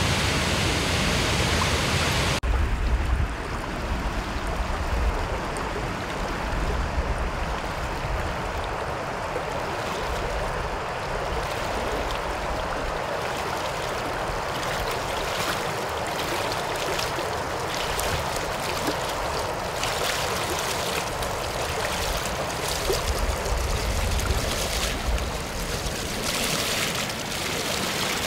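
Roar of a waterfall and white-water rapids, cutting off abruptly about two seconds in to the quieter flow of a shallow river, with the splashing of a person wading through it in rubber boots, more frequent near the end.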